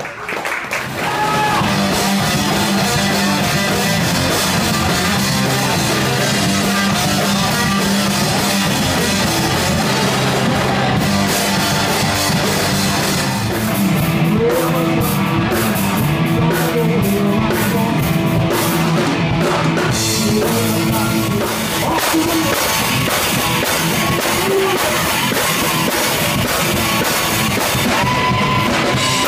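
Live rock band playing loud: electric guitar and a drum kit, dense and steady. The music cuts to a different song and band about halfway through.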